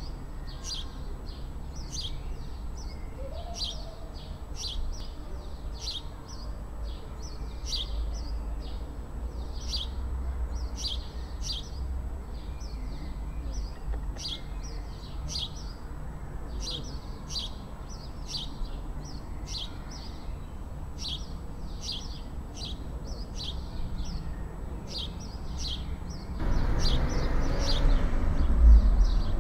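A small bird repeating a short high chirp about one to two times a second, over a low steady outdoor rumble. About 26 seconds in, a louder rumbling noise comes up beneath the chirps.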